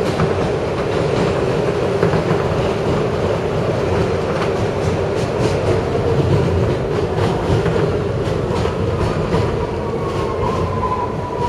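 R160 subway train running along the track, heard from the front cab: a steady rumble and hum, with irregular clicks of the wheels over rail joints through the middle. Near the end a higher whine comes in and slides slowly down in pitch.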